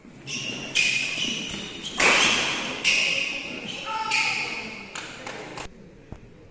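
Badminton doubles rally on an indoor court: a string of sharp racket hits and shoe squeaks, each echoing off the hall, with a player's shout among them; the play stops about five and a half seconds in.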